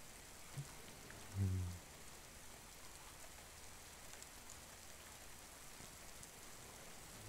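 Steady rain falling, an even hiss. About one and a half seconds in comes a short, low hummed "mm" from a man's voice.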